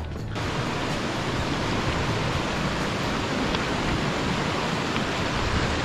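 Rocky mountain stream rushing over boulders, a steady loud hiss of water that cuts in abruptly just after the start.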